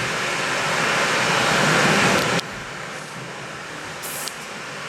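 Played-in storm sound effect: a loud rushing of wind and rain that swells, then drops off suddenly about two and a half seconds in, leaving a quieter hiss.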